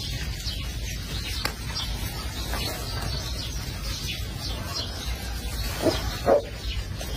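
Puppies squeaking and whining, with two short, louder yelps near the end, over steady background noise.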